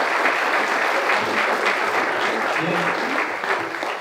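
Audience applauding, many hands clapping at once, with a few voices in the room.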